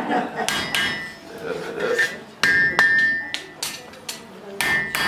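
Blacksmith's hand hammer striking a hot horseshoe on the anvil while it is being forged. The blows come mostly in quick pairs about two seconds apart, each ringing out metallically.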